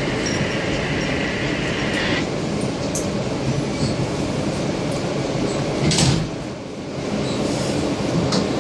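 Inside an R160B Siemens subway car as the doors shut and the train moves off: a steady high tone over the first two seconds, then wheels rumbling on the rails. There is a loud clack about six seconds in.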